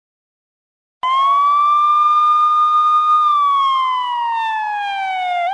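Wailing siren sound effect: a single loud tone comes in about a second in, climbs a little and holds, then slowly falls in pitch.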